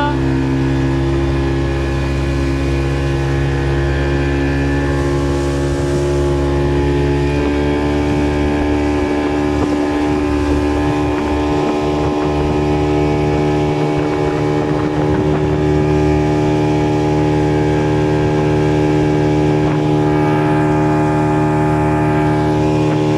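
Boat motor running steadily at an even pitch, a constant droning hum with no change in speed.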